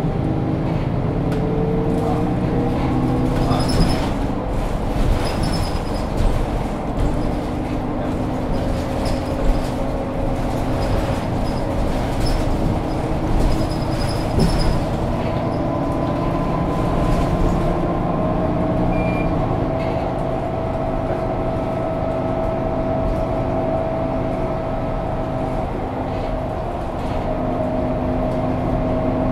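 Interior sound of a Mercedes-Benz O530 Citaro Facelift city bus standing with its diesel engine idling: a steady rumble with several held humming tones.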